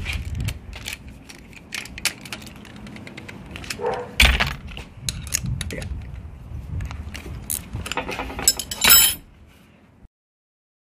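Steel wrench clicking and clinking on double-nutted exhaust manifold studs as they are worked loose, with scattered small metallic ticks and a louder clank about four seconds in and again just before the end. The sound cuts off suddenly near the end.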